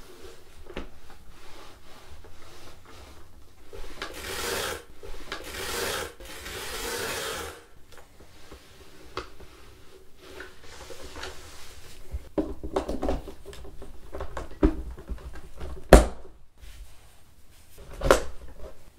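Microfiber mop pads and plastic parts of a cordless electric spin mop being handled: cloth rubbing and swishing against plastic for several seconds, then scattered clicks and knocks, with a sharp knock about three seconds before the end and another near the end.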